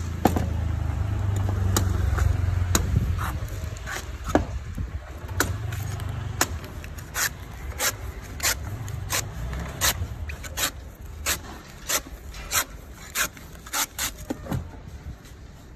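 Cleaver shaving the husk off a young green coconut, each stroke a sharp chop, coming about one and a half times a second in the second half. A low engine rumble runs under the first few seconds.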